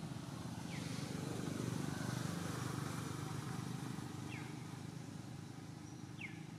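Low engine rumble of a passing vehicle, swelling and then fading. Three short, high, downward chirps sound over it.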